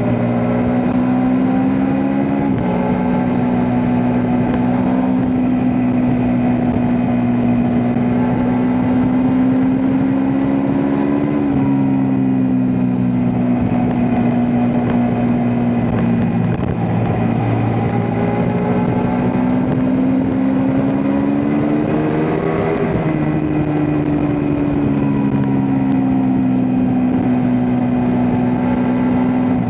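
Ducati Multistrada V4 S's V4 engine running under way. Its pitch climbs and then drops sharply twice, about two and a half and eleven seconds in, as the bike shifts up a gear. It climbs again to a peak about twenty-three seconds in and then falls away slowly.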